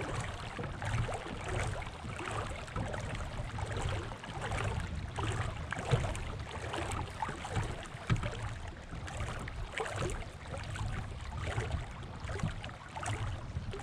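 Uneven rush of wind and water heard aboard a fishing boat, with scattered small knocks.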